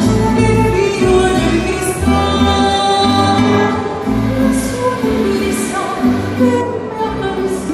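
A woman singing with a live band of electric bass, acoustic guitars and flute, holding long sustained notes over a steady bass line.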